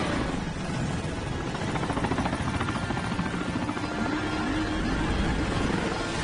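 Helicopter rotor blades beating in a fast, steady chop, with engine noise underneath, as heard in a film's chase-scene soundtrack.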